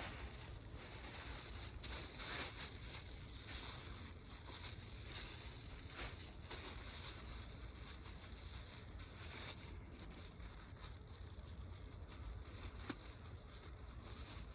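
Wood bonfire crackling and popping in irregular snaps, with one sharper pop near the end.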